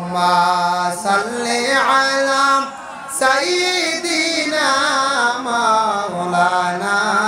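A man chanting in a melodic, sermon-style intonation: long held notes with a wavering, ornamented pitch. The first phrase steps upward and holds, there is a short breath break about three seconds in, then a second phrase winds gradually downward.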